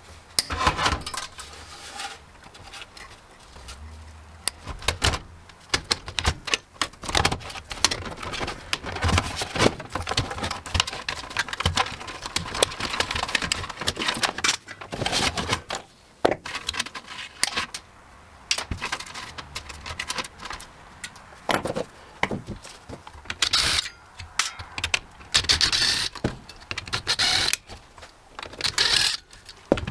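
Metal parts and screws of a desktop computer clicking, rattling and scraping in irregular bursts as it is taken apart by hand.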